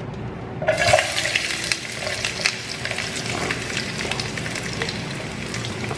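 Sliced onions tipped off a plastic cutting board into hot oil in a pan, starting to sizzle suddenly just under a second in and sizzling steadily with small crackles after that.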